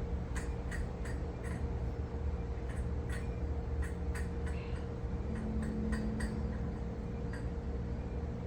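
Irregular small metallic clicks and ticks from a stiff gas forge burner fitting being worked loose by hand, over a steady low hum.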